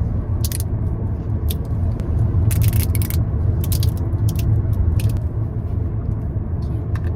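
Steady low road rumble inside a moving car's cabin, with short plastic crackles and rattles every second or so from glow sticks being bent and handled.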